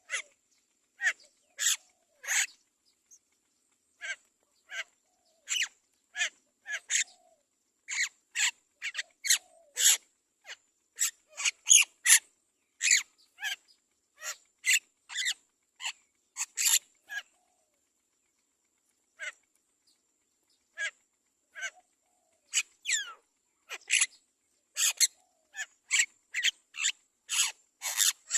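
Mynas calling at the nest: many short, sharp chirps, some sliding in pitch, repeated irregularly with a brief lull past the middle.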